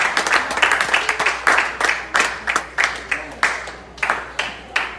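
Audience clapping together in time, about three claps a second, with the hall's echo after each, gradually fading and thinning out.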